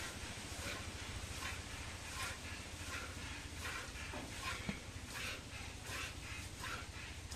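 A cow being milked by hand into a plastic bucket: jets of milk squirt into the bucket as short hissing spurts, a little more than one a second, in an even rhythm.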